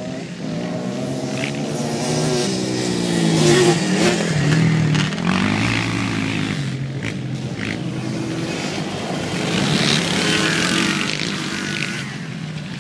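Racing quad bike engines revving up and down as they pass along the dirt track, the pitch rising and falling with each throttle change. Loudest about four seconds in and again around ten seconds in.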